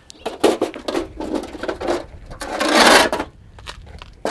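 Handling noise from an aircraft engine cowling panel: a run of irregular rattling clicks and knocks, then a louder scrape about two and a half seconds in that lasts about a second.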